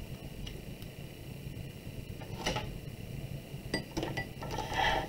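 Light clicks and clatters of a clear plastic ruler being picked up and laid across a clay slab on a wooden board, with one clatter about halfway through and a busier cluster near the end.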